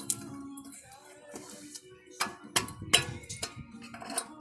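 A series of sharp metallic clicks and clinks, several in a row, from steel brake hardware (pad clips and caliper bracket parts) being handled and fitted.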